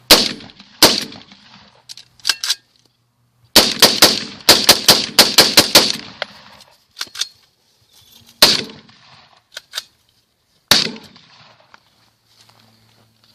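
AR pistol being fired: two single shots, then a fast string of about ten shots over two and a half seconds, then two more single shots, each a sharp crack with a short echo.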